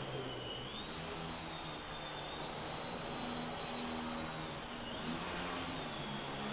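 Small indoor foam RC aerobatic plane's electric motor and propeller whining in flight, the pitch rising with throttle about a second in, then surging again about five seconds in and dropping back.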